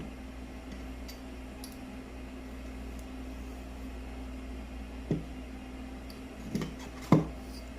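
A few short knocks as the stand's pole is fitted into its heavy base: one about five seconds in, then two near the end, the last the loudest, over a steady low hum.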